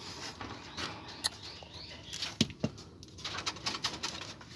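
Rustling and scattered sharp clicks and taps at a wire rabbit cage as a rabbit shifts and eats from its bowl. The loudest sound is a pair of clicks around the middle, followed by a quick run of light taps.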